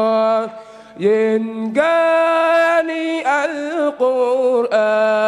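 Young male voices chanting an unaccompanied Wolof religious song about the Qur'an, in long held notes. Short phrases are broken by a brief pause about half a second in.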